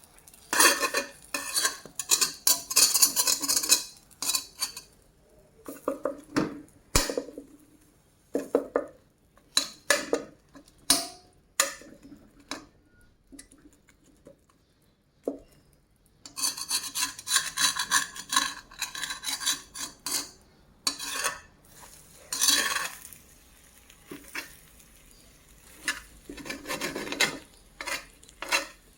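Metal utensils scraping, stirring and clinking against dishes and pans in irregular bursts, with a few seconds of quiet near the middle.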